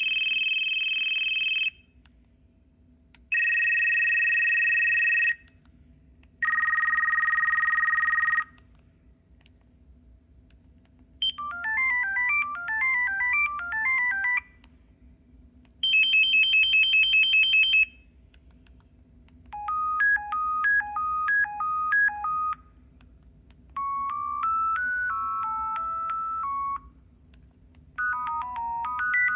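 Audiovox CDM9900 cell phone playing its preloaded ringtones one after another, with short pauses between. First come three rapidly alternating two-tone rings, each about two seconds long and each lower in pitch than the last, then simple beeping melodies and a brief fast high trill.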